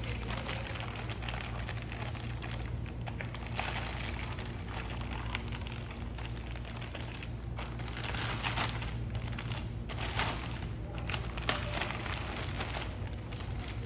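Packaging being crinkled and pulled off a dashboard piece as it is unwrapped: continuous rustling with scattered light taps and knocks. A steady low hum runs underneath.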